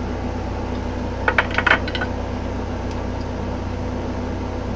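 A quick cluster of small metallic clicks and clinks about a second and a half in, from handling digital calipers with a bullet comparator on a 7mm bullet, over a steady low hum.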